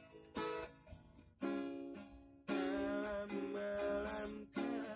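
Acoustic guitar strummed, one chord stroke about every second at first, then fuller strumming in the second half. A wordless voice hums a wavering line over the chords.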